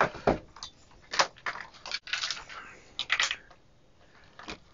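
Handling noise on a workbench: about half a dozen sharp clicks and knocks as a handheld voltage calibrator is set down and banana-plug test leads are handled at a multimeter's input jacks.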